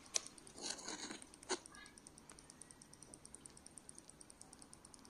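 Faint, rapid, even high-pitched ticking from an ultrasonic parking sensor in the rear bumper of a Ford Fiesta mk7. The ticking shows the sensor is sending its pulses; the faulty one stays silent. A few rustling handling noises come in the first couple of seconds.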